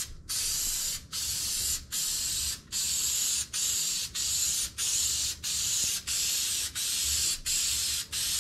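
Aerosol can of heavy-duty automotive headliner spray adhesive hissing in short bursts, a little more than one a second, as adhesive is sprayed onto a headliner board.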